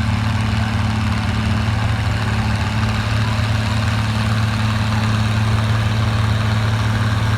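Oliver farm tractor engine running steady and hard while pulling the weight sled, in what the announcer believes is low gear.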